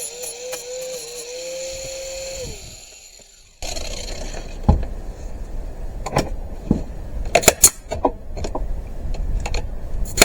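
Angle grinder with a flap sanding disc running with a steady whine, then switched off and spinning down about two and a half seconds in. After a short lull, a run of sharp knocks and clatter.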